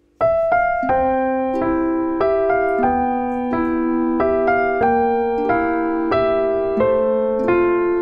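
Background piano music: a gentle melody of single ringing notes, a few a second, starting suddenly just after the beginning.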